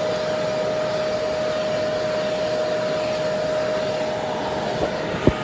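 Pet grooming vacuum running steadily, a constant hiss of airflow with a steady whine. A single sharp click comes near the end.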